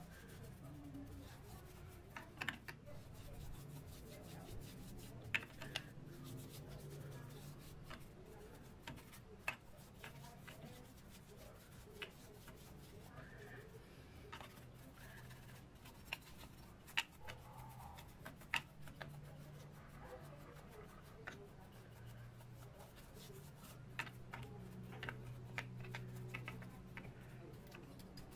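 Quiet scrubbing of a small brush inside a speedometer's oily metal mechanism, with scattered sharp clicks as the brush knocks against the gears and levers. A faint low murmur runs underneath.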